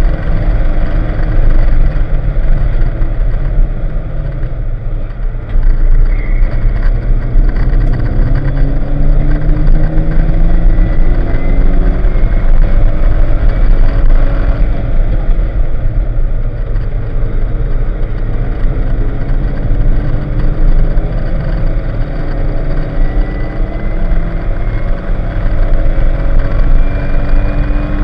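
A Porsche 944's 2.5-litre four-cylinder engine heard from inside the cabin, driven hard on a race track: the revs climb again and again through the gears, dropping briefly at each shift. The engine goes quieter for a moment about four seconds in and again around halfway, then pulls up through the revs once more.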